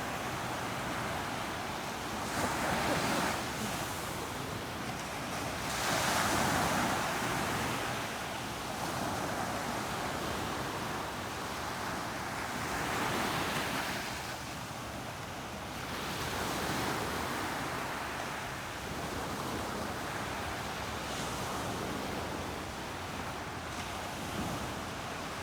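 Atlantic Ocean surf breaking on a beach: a continuous hiss of waves that swells into louder washes every few seconds, the strongest about three and six seconds in.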